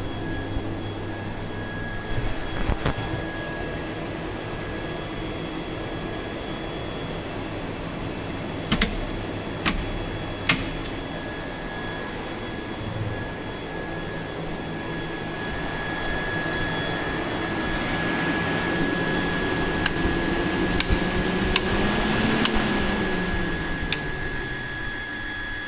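A distillery's water cooling rig running: electric fans on two second-hand car radiators and a loud circulating pump give a steady hum with a thin whine, growing louder in the second half. There are a few sharp clicks in the first half, and near the end a tone falls in pitch as the fans are switched off and spin down.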